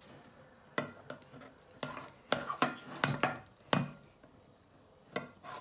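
Metal spoon stirring thick slime in a ceramic bowl, knocking and scraping against the bowl in an irregular run of sharp clicks, thickest between about one and four seconds in.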